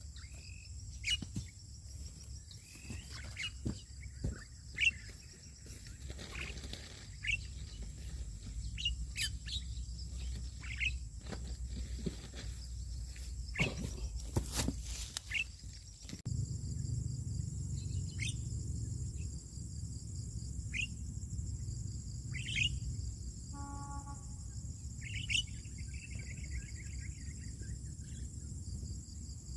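Birds giving short, sharp chirps that sweep downward, repeated irregularly many times, over a steady high drone of insects.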